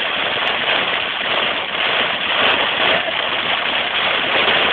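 Heavy rain and road spray making a loud, steady rush, heard from inside a moving car.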